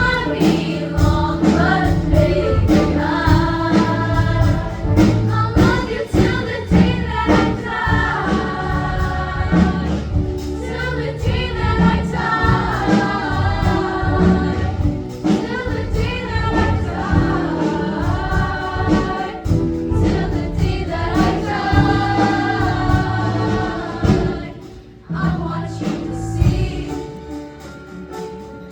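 Music with a choir singing over a dense accompaniment with a steady beat. About 25 seconds in it drops away sharply to a quieter passage.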